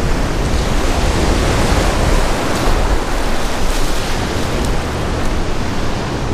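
Ocean surf washing over the shallows, a steady loud rush, with wind buffeting the microphone.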